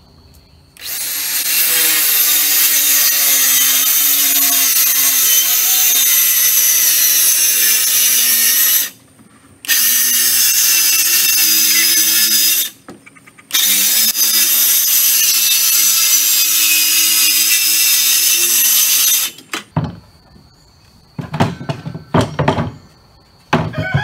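Handheld circular saw ripping a 2x4 lengthwise into two strips, running in three long cuts with two brief stops, its motor pitch wavering under load. After the cutting, a few knocks as the wooden boards are handled.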